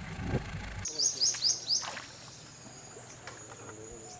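A low engine rumble cuts off abruptly just under a second in, then a bird calls four quick, falling high notes, followed by a steady high insect drone.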